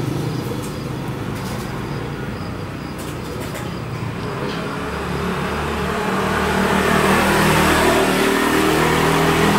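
A motor vehicle passing on the road, its engine hum and road noise swelling from about halfway through.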